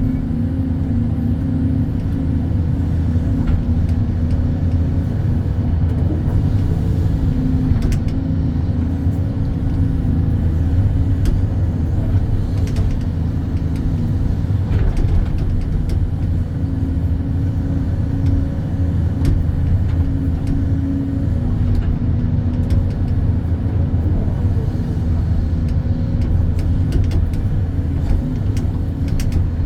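Hydraulic excavator's diesel engine running steadily under load while it digs and shapes a pond corner, with a few faint knocks.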